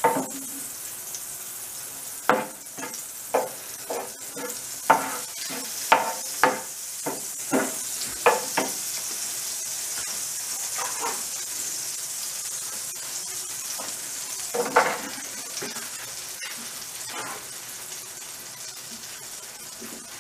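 Butter and meat stock sizzling steadily in a nonstick frying pan, with a wooden spoon knocking and scraping against the pan about ten times in the first nine seconds and once more about fifteen seconds in.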